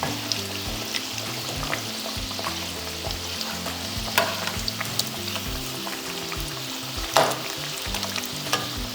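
Pakora batter deep-frying in hot oil: a steady sizzle full of small crackles, with a few sharper clicks, the loudest about seven seconds in.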